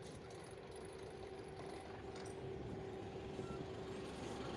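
A car engine and tyres as a car pulls up to the level crossing and drives across, getting gradually louder.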